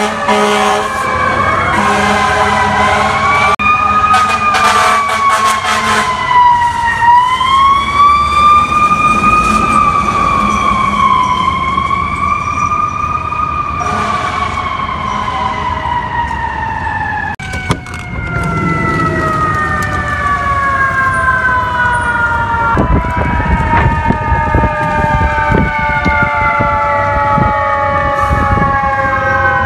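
FDNY fire engine siren wailing, its pitch rising and falling slowly every few seconds, then sliding down in long falling sweeps over the second half with another siren overlapping. Truck engine and street traffic run underneath.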